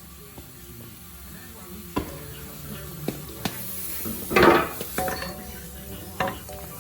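Scattered metallic knocks and clanks of tools and car parts, with a louder rattling clatter about four and a half seconds in, over faint background music.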